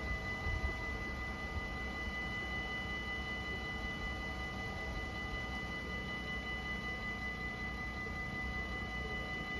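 Dutch automatic level-crossing warning bells ringing steadily with the barriers down, a high metallic ringing that does not let up, over a low rumble.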